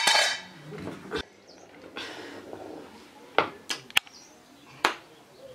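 A metal pot lid clatters onto a tiled floor and rings briefly as it settles, followed later by a few sharp clicks.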